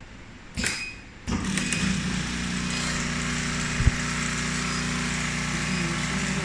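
Industrial hat brim sewing machine starting up a little over a second in and then running steadily, with one sharp click near the middle.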